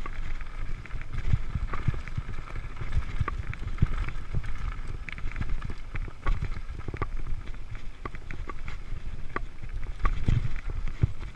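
Mountain bike riding along a dirt singletrack: tyres rolling on the trail and the bike rattling, with frequent knocks and clicks as it goes over bumps.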